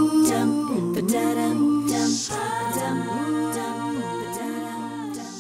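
A cappella vocal music: several voices singing gliding harmonies over a steady low bass note, slowly fading toward the end.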